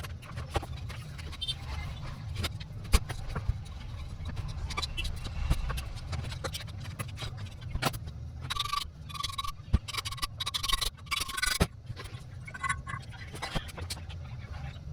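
Metal clicks, knocks and scraping of hand tools working on a window AC fan motor as it is taken apart to get its worn bearings out. A squeaky scraping runs from about nine to twelve seconds in, over a low steady hum.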